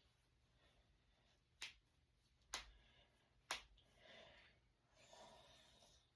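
Three sharp knuckle cracks about a second apart, from finger joints being cracked by hand, followed by a couple of soft breaths.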